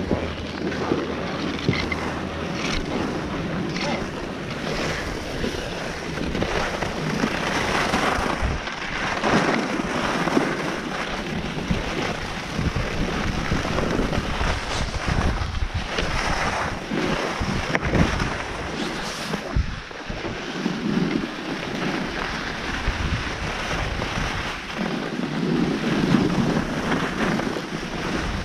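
Wind rushing over the microphone of a chest-mounted action camera while skiing downhill, mixed with Head alpine skis hissing and scraping over packed snow. The sound surges and fades with the turns.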